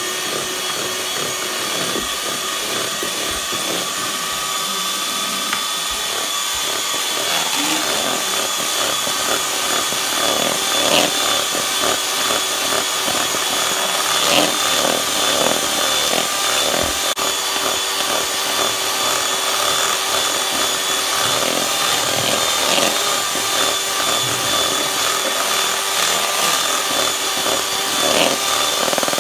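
Electric hand mixer running steadily, its beaters whipping cream cheese frosting in a bowl: a constant motor whine, with a busier rattling texture from about seven seconds in.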